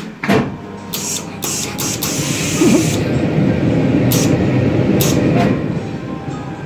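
Clothes iron pressed and slid over a piece of fabric on a table: a rough, hissing rub lasting about four seconds, with a few knocks as the iron is set down and handled.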